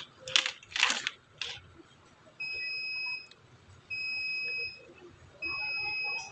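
An electronic beeper sounds three identical high, steady beeps about a second and a half apart, each almost a second long. A few sharp clicks of handling come in the first second and a half.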